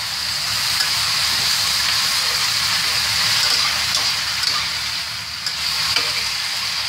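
Chopped mustard greens sizzling in hot peanut oil in a wok as they are stir-fried, a steady frying hiss with a few faint taps of the spatula against the pan.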